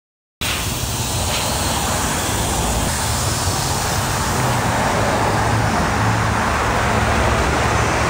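Steady outdoor noise, a loud even hiss over a low rumble, cutting in suddenly after a short dropout to silence just after the start.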